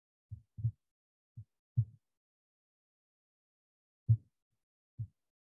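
Six short, dull thuds at uneven intervals, the loudest about two and four seconds in, with dead silence between them.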